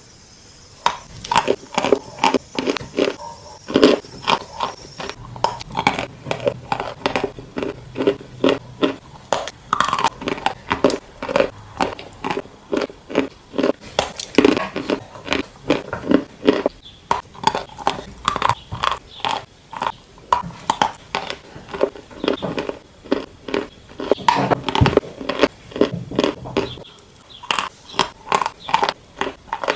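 Close-miked bites and chewing of crunchy chicken, the crispy coating crackling and crunching several times a second.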